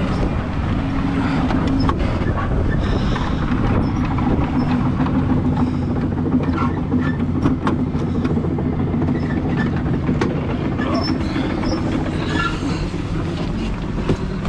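Tracked excavator running steadily, with its steel tracks clanking and squeaking as it moves, and scattered clicks and knocks.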